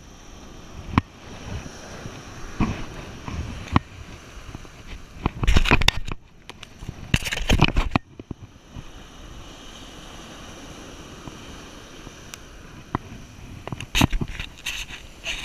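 Surf washing on the beach as a steady hiss, with scattered sharp clicks and rustles from handling a caught fish, and two louder rushes of noise about five and seven seconds in.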